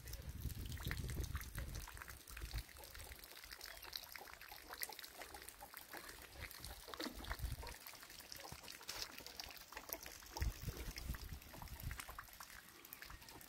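Rainwater leaking through a tarp roof, trickling and dripping in many small, irregular drips onto a concrete floor and block wall, with a low rumble in the first couple of seconds.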